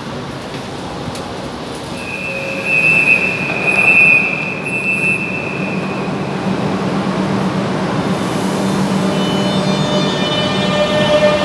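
Alstom Fleet F metro train at a station platform, with a low steady hum under a high steady tone that lasts about four seconds. Near the end the train's traction motors whine, rising in pitch as it pulls away.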